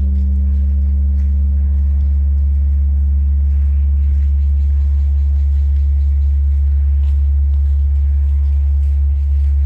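Large Korean Buddhist temple bell (beomjong) ringing on after a strike, rung for the evening service: a loud, deep hum that holds steady while its higher overtones die away about three seconds in.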